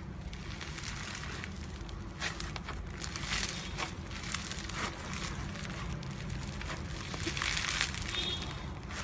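Slime being squeezed and worked by hand, giving a run of irregular crackles and pops.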